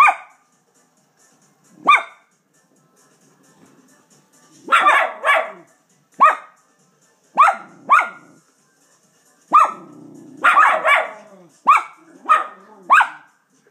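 A dog barking, about a dozen sharp barks, some single and some in quick pairs, with pauses of up to about two and a half seconds between them.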